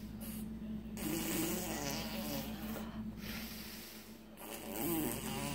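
A steady low buzzing hum over a faint hiss, with brief faint voice-like sounds about a second in and again near the end.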